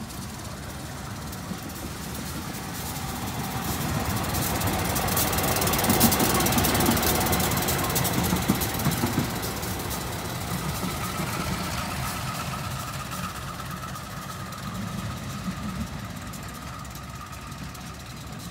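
Diesel locomotive passing close by: its engine running and its wheels clattering over the rails, growing louder to a peak about six seconds in, then fading as it moves away.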